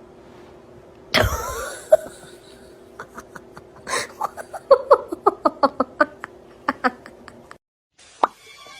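A sudden loud sound about a second in, then a person laughing in a quick run of short bursts that cuts off abruptly near the end.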